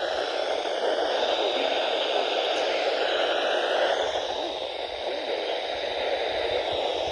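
Steady radio static: an even hiss from a radio receiver on a weak signal, with no clear speech coming through.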